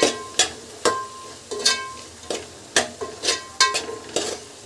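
Steel spoon stirring frying vegetables in an aluminium pot, knocking and scraping against the metal about twice a second, each knock ringing briefly, over a light sizzle.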